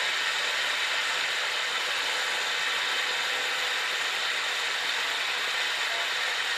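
Military transport helicopter cabin noise with the rear ramp open: engine and rotor noise as a steady, loud rushing drone that holds even throughout.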